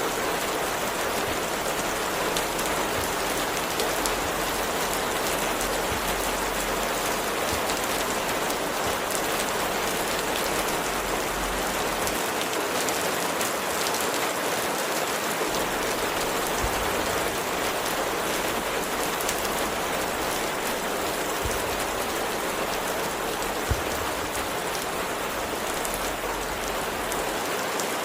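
Steady rain falling, a continuous dense patter of drops on a surface, with one brief click about five-sixths of the way through.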